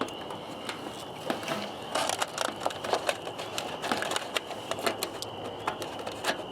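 Irregular clicks, taps and small rattles of hands working the plastic headlight housing and bulb sockets of a riding lawn mower, growing busier about two seconds in, over a steady faint high tone.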